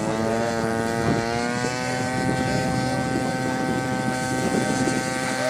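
Motor of a radio-controlled model plane running at part throttle while held for a hand launch: a steady whine whose pitch climbs over the first couple of seconds and then holds.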